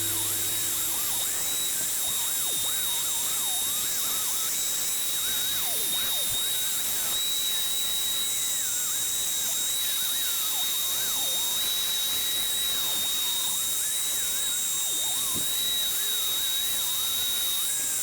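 Small high-speed electric power tool running steadily with a high-pitched whine and hiss, the kind of rotary tool or grinder used to clean and strip the old drill's parts.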